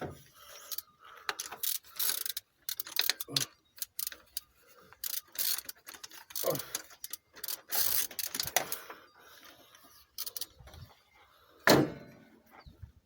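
Ratchet spanner clicking in short, irregular runs while a new glow plug is screwed into a diesel engine's cylinder head, mixed with knocks of metal tools. A sharper knock comes near the end.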